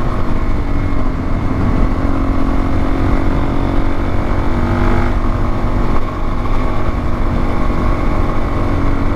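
Motorcycle engine running at a steady cruising speed under way, with road noise; the pitch shifts slightly about five seconds in.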